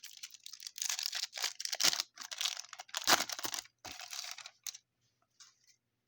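A foil baseball card pack being torn open and crinkled, with the cards scraping against each other as they are handled, in a run of short rustles and tears that dies away about five seconds in.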